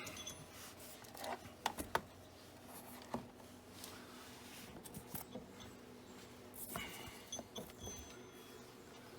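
Scattered light clicks and knocks of hand tools being handled at a door hinge, a few sharper taps early on and a quick run of small clicks later.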